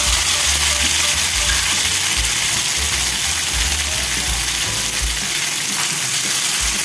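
Tomato, onion and garlic sizzling steadily in hot coconut oil in a pan, with a spoon beginning to stir them near the end.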